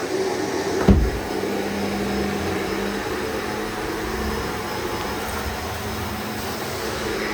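Shark NZ780UKT upright vacuum cleaner running steadily with a constant motor hum, cleaning hard floor. About a second in there is one sharp thump, the loudest sound.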